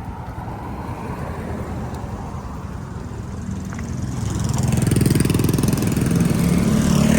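A small motor vehicle's engine running close by, growing louder about four seconds in, against a steady traffic background.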